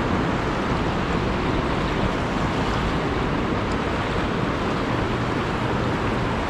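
Steady rush of fast-flowing river current, with wind buffeting the microphone.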